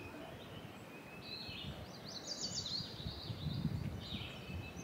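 Birds singing in short repeated chirpy phrases over outdoor background noise, with a low rumble that swells about three to four seconds in.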